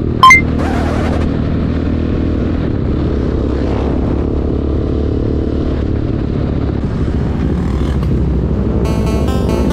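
Motorcycle engine running steadily at road speed, with wind and road noise on the bike-mounted microphone and one brief loud burst just after the start. Background music comes in near the end.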